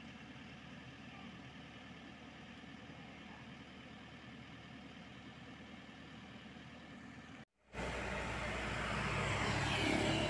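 Komatsu PC78US mini excavator's diesel engine running steadily, fairly faint at first. After a short break about seven and a half seconds in, it returns louder and close up.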